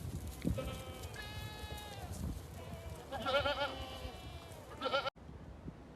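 Goats bleating, several separate calls: one long steady bleat, then a wavering, quavering one, with a short bleat just before the sound cuts off abruptly about five seconds in.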